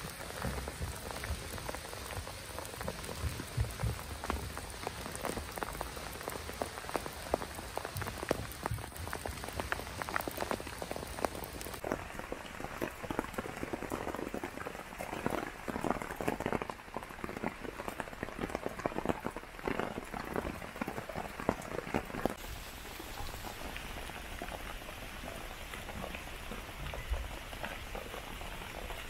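Steady rain falling through a forest, with many individual drops pattering close by.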